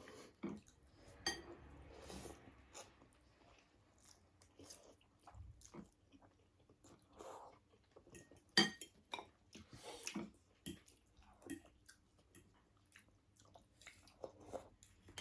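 Close-miked chewing and eating: scattered wet smacks and short clicks of food being bitten and chewed, with one sharper click a little past halfway.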